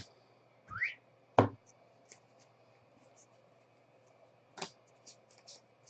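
Hands handling trading-card packs and cards: a short rising rip just before a second in, then a few sharp clicks and taps with faint rustling between them.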